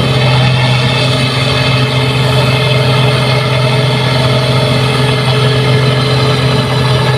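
New Holland 8060 combine harvester's engine running at a steady speed, a constant droning hum that does not rise or fall.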